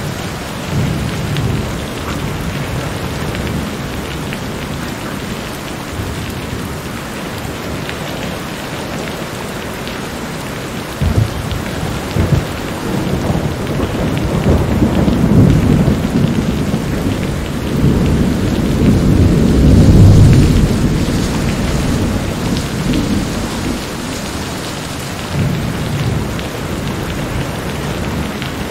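Steady rain with thunder rolling several times, the longest and loudest rumble about two-thirds of the way through.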